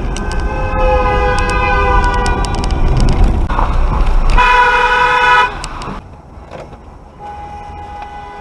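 Vehicle horns honking over a low road rumble: a long honk lasting about three seconds, then a louder, shorter blast of about a second. Near the end, a quieter horn tone starts and holds.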